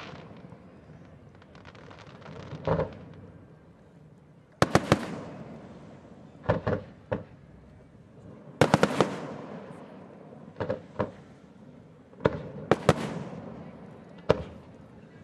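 Aerial fireworks shells bursting over a harbor: sharp bangs in clusters every second or two, each trailing a long echo off the water.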